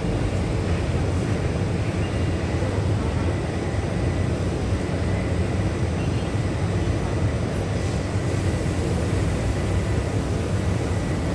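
Steady low hum and rumble of a Taipei Metro Wenhu Line train standing at the station, with a few faint steady whining tones over it.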